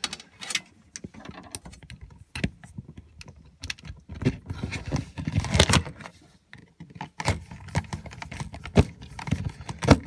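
Hand tool and wiring work: irregular clicks, taps and scraping as the plus and minus leads are screwed onto the terminals of a new 12 V compressor fridge control unit with a screwdriver, with denser clattering about halfway through and again near the end.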